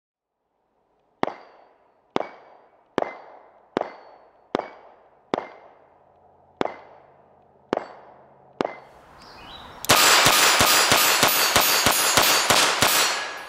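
Smith & Wesson 617 .22 LR revolver fired nine times about a second apart, each sharp crack followed by a brief metallic ring as the rounds hit steel plates. About ten seconds in, a louder, dense stretch of noise with rapid clicks takes over for about three seconds.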